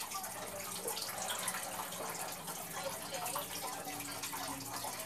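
Steady, faint trickle of running water in a small room.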